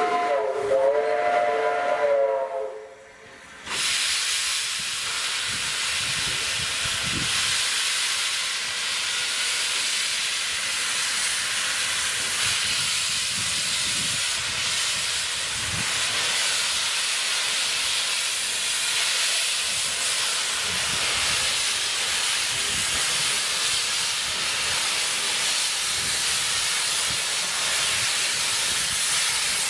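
Steam locomotive whistle sounding a chord of several notes for about two seconds. After a short lull comes a loud, steady hiss of steam from the open cylinder drain cocks as the engine moves slowly towards the camera, with a few low thumps under it.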